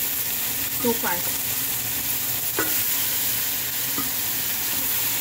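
Raw chicken pieces sizzling in hot oil with onion, garlic and red chili in a metal pot, a steady frying hiss, with a few brief scrapes as the pieces are stirred and turned.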